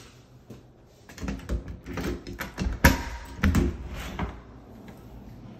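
A white panel door being worked open: a run of clicks and knocks from its deadbolt, lever handle and latch, the sharpest about three seconds in.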